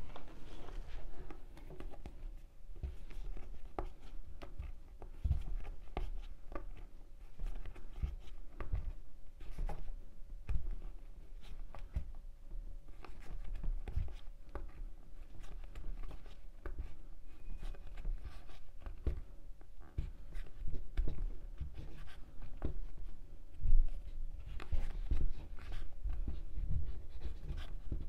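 Hands crocheting with macrame yarn: the yarn rubbing and scratching as stitches are pulled through, with scattered small clicks and knocks.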